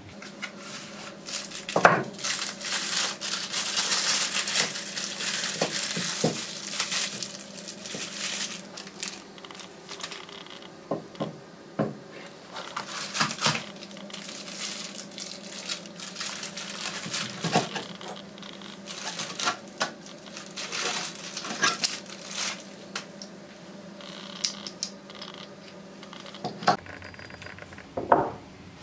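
Plastic bags crinkling as they are pulled off the steel parts of a Nova Titan III woodturning chuck, with repeated clinks and knocks as the heavy steel chuck body and jaw sets are handled and set down on a wooden workbench.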